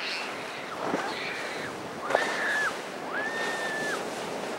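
Waves and boat spray washing through rough inlet water, with wind noise on the microphone. Three short high-pitched tones sound about one, two and three seconds in.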